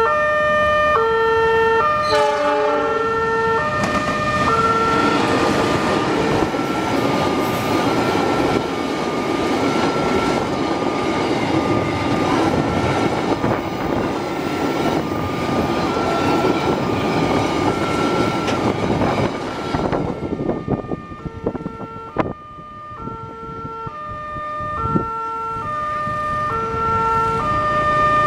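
Level-crossing electronic warning alarm sounding two alternating tones, each about half a second long, while a diesel-hauled train of tank wagons passes: a short horn note about two seconds in, then the steady rumble and clatter of wheels on rail for about fifteen seconds, dying away near the end as the alarm keeps going.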